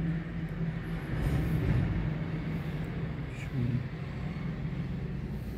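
Electric sewing machine running steadily, a constant motor hum, as it stitches a lace border onto suit fabric.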